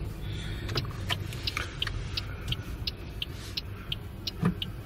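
Car interior at road speed: a steady low engine and road rumble, with a quick regular ticking of about three ticks a second from about a second in. There is a single knock near the end.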